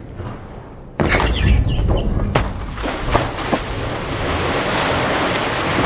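A person falling into the water beside a moored boat's hull: a sudden loud crash about a second in, a few sharp knocks and splashes, then a steady rushing noise.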